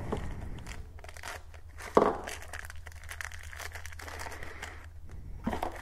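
Clear plastic parts bag and bubble wrap crinkling and rustling as small parts are unwrapped by hand, with a louder rustle about two seconds in and another near the end.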